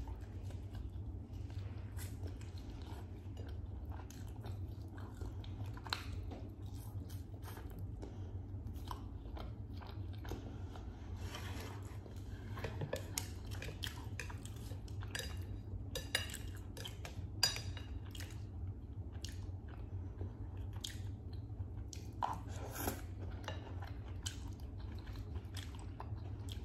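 Close-miked eating: chewing and biting with crisp crunches and wet mouth clicks. The clicks are densest around the middle and again near the end, over a steady low hum.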